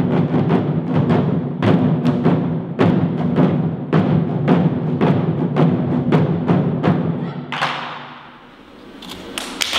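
Large Japanese taiko barrel drums struck with wooden sticks in a steady beat of about two strokes a second, over the drums' deep ringing. The last strokes come about seven and a half seconds in, the drums ring out and fade, and applause starts near the end.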